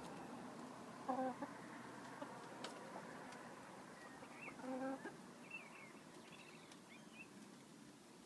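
Chickens clucking: two short low calls, one about a second in and one near five seconds, with a few faint higher chirps in between.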